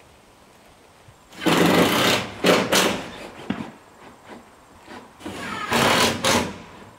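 Cordless drill driving screws into metal roofing panels, running in two spells of about a second each with a brief one between.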